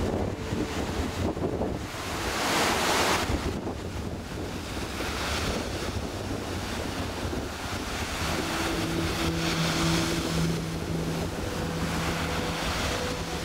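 Sea surf breaking and washing onto the shore in repeated surges, with wind buffeting the microphone. A faint steady hum comes in about two-thirds of the way through.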